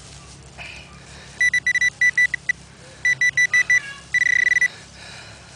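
Garrett Pro-Pointer pinpointer beeping on a metal target in a dig hole: a quiet stretch first, then rapid high beeps about a second and a half in that come in bursts, then a solid tone for about half a second near the end, the pinpointer right on the target.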